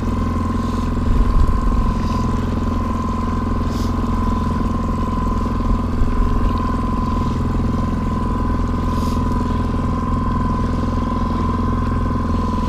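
Fishing boat's motor running steadily at trolling speed: a low drone with a constant high-pitched whine over it.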